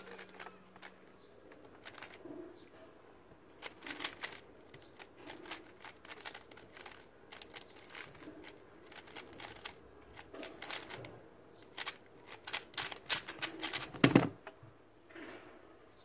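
GAN Mini M Pro magnetic 3x3 speedcube being turned fast during a timed solve: bursts of rapid plastic clicking and clacking of the layers, broken by short pauses. About fourteen seconds in, a louder thump as the cube is put down and the timer stopped.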